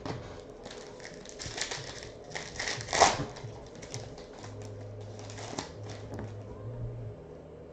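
Trading cards being handled and flipped through by hand: a run of light clicks, slides and snaps of card stock, the loudest about three seconds in.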